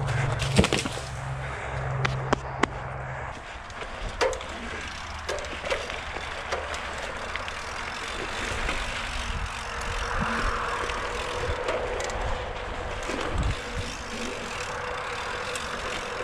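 Mountain bike being ridden on dirt singletrack: a steady rush of tyre noise and wind on the microphone, with several sharp clattering knocks from the bike over bumps in the first few seconds.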